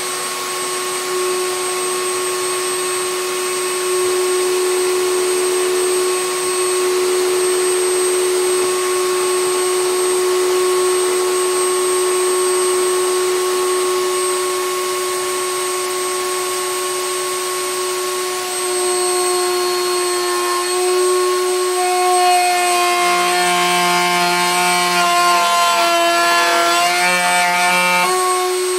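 Table-mounted router running with a steady whine as a butcher block cutting board is fed into the bit to cut a finger groove. From about two-thirds of the way through, the pitch wavers and the tones shift as the bit cuts into the wood.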